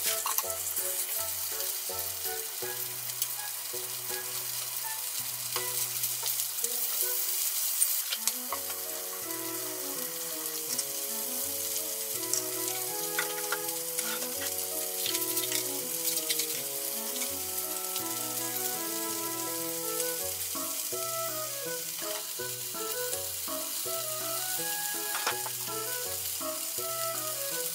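Pieces of yellowtail sizzling as they fry in sesame oil in a frying pan. The sizzle is strongest in the first several seconds, with a few light clicks as the pieces are turned with chopsticks. Background music with a melody plays under it.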